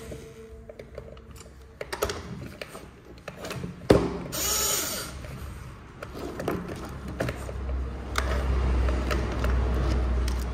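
Plastic parts of a toy excavator being handled and fitted during reassembly: scattered sharp clicks and rattles, with one loud knock about four seconds in.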